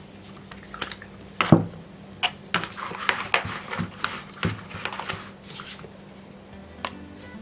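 Kitchen handling noises on a tabletop: a thump about 1.5 s in as a plastic oil bottle is set down, then a run of light knocks, clicks and rustles as the hands work around a plastic mixing bowl of dough.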